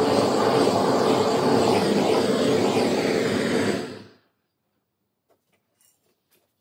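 Hand-held gas torch burning with a steady, loud rushing noise as its flame heats a metal gun part. It cuts off abruptly about four seconds in, leaving near silence with a few faint ticks.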